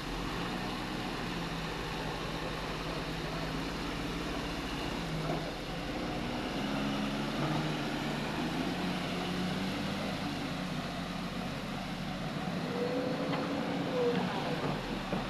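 Loaded Tata tipper truck's diesel engine pulling away and driving off, the engine note shifting up and down as it moves.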